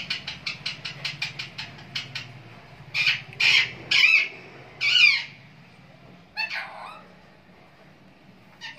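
Rose-ringed parakeet calling: a quick run of short chattering notes, about five a second, then four loud harsh squawks a few seconds in and two weaker calls a little later.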